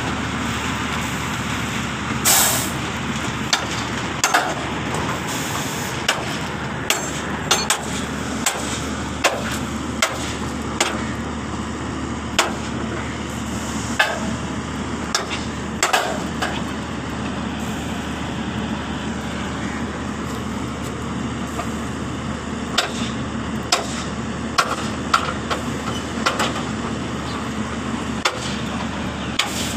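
A dump truck's engine running steadily, with sharp metallic knocks at irregular intervals as the tailgate latches at the back of the tipper body are worked loose before the crushed stone is tipped.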